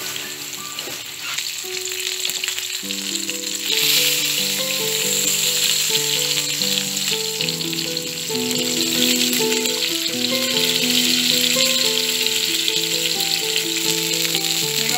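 Breaded chicken breast slices sizzling as they shallow-fry in hot oil in a non-stick pan. The sizzle gets louder about four seconds in. Background music with a gentle melody plays throughout.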